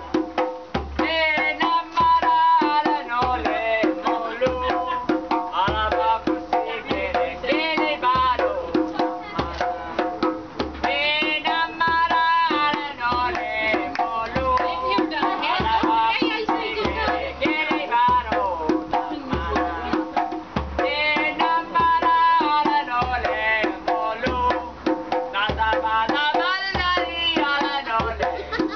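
Live music: a djembe hand drum played in a steady, fast rhythm of strokes alongside acoustic guitar, with a wavering melody line above.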